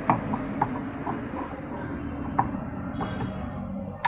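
Small metallic clicks and taps as the Royal Enfield Himalayan's magnet-coil rotor, the flywheel with the starter ring gear, is slid onto the crankshaft and seated, meshing with the starter gears. A steady low hum runs underneath.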